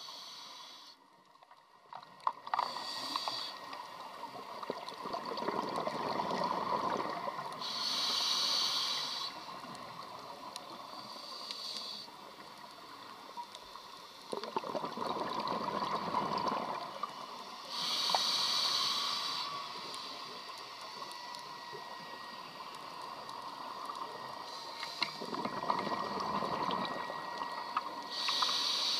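Scuba diver breathing through a regulator underwater: a short hissing inhale every several seconds, each followed by a longer bubbling exhale.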